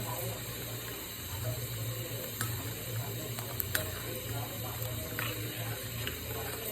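Pot of soup simmering on the stove, with a steady low hum underneath and a few faint clicks.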